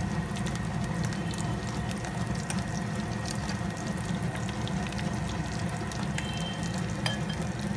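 Breadcrumb-coated potato patties shallow-frying in hot oil in a steel pan: a steady sizzle with many fine crackling pops.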